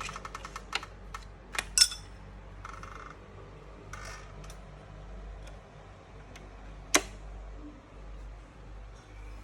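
A run of quick small clicks and taps, fast and even at first, then a few faint ticks and one sharp click about seven seconds in.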